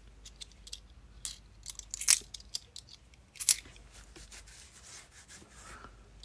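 £2 coins clicking against each other as they are slid one at a time off a stack held in the hand. Scattered light clicks, with louder ones about two seconds in and again about three and a half seconds in.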